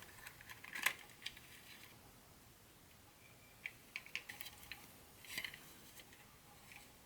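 Light handling sounds of unboxing small model train parts: scattered sharp clicks and ticks with brief rustles of packaging, loudest about a second in and again in a quick run of ticks near the middle.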